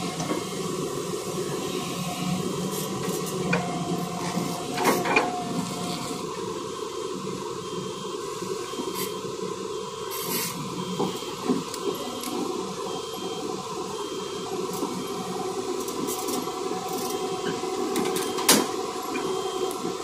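Hyundai Robex 215 hydraulic excavator's diesel engine running steadily under load as it digs and swings, with a few sharp knocks of rock against the steel bucket and truck bed, one about ten seconds in as the bucketload is dropped into the tipper truck.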